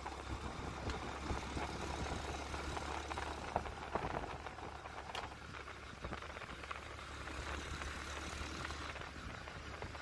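Small motorcycle engine running steadily under way, mixed with wind and road noise on a gravel road.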